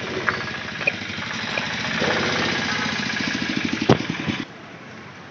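A motor vehicle's engine running close by on a street, growing louder over the first few seconds with a fast pulsing beat. A single sharp knock comes near the four-second mark, and soon after the sound drops suddenly to quieter street noise.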